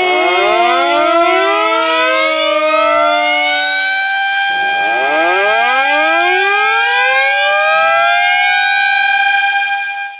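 Tornado warning (civil defense) siren wailing in several overlapping tones. One wail drops away about four seconds in, a new one winds up and holds a steady pitch, and the sound stops abruptly at the end.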